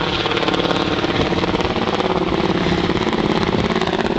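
Helicopter flying over: a steady, loud engine and rotor sound with a rapid, even chopping pulse.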